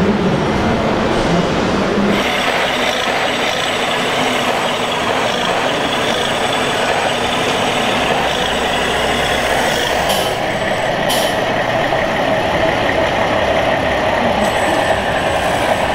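Steady engine-like running sound of RC scale model tractors, mixed with the constant din of a busy exhibition hall. The sound changes character about two seconds in, and two short clicks come near the middle.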